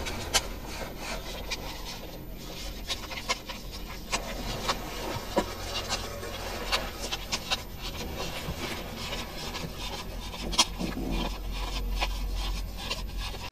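Clothing fabric rubbing and rustling against a hidden body-worn microphone, with paper banknotes being handled, giving many short crisp clicks and flicks.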